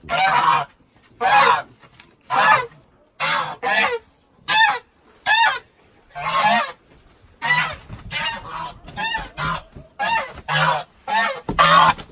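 Domestic grey geese honking over and over, about one or two loud honks a second, as they are grabbed and handled.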